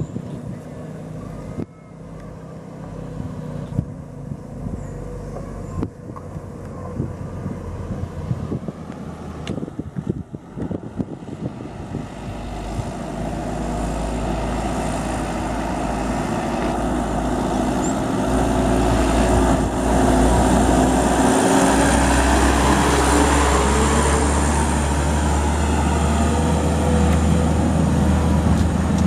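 Diesel engine of a Mitsubishi Canter light truck loaded high with oil palm fruit bunches, approaching and passing. It grows steadily louder from about halfway through, with a short break in the engine note about three quarters of the way in, then a louder, steady note.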